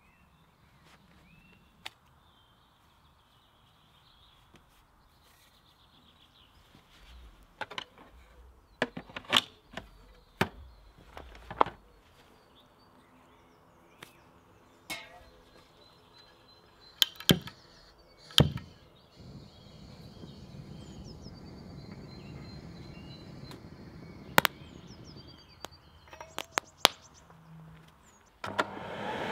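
Scattered knocks and clacks of hard objects being handled, with faint bird chirps. A low steady rushing sound comes in about two-thirds of the way through.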